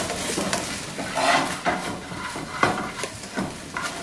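Diced chicken sizzling in a frying pan as metal tongs stir and toss it, clacking and scraping against the pan several times.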